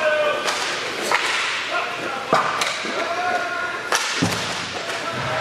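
Hockey sticks cracking and slapping sharply on the court during play, about half a dozen times, with players' shouts, echoing in a large hall.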